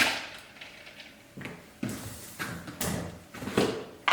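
A sharp knock, then a run of softer knocks and thuds, and another sharp knock at the end: things being handled and set down in a kitchen.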